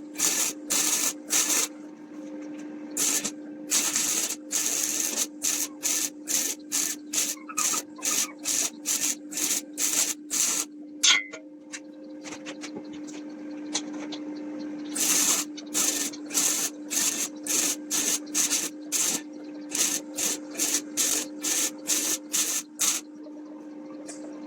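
Wood being sanded by hand in rhythmic back-and-forth strokes, about two a second, with a short pause about halfway through, over a steady hum.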